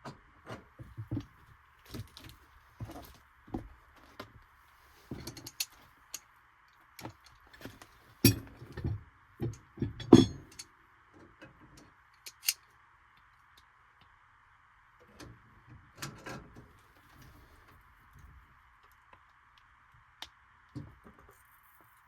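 Irregular clinks, clicks and knocks of tools and metal parts being handled, with quiet gaps between them. The loudest knocks come about a third and halfway through.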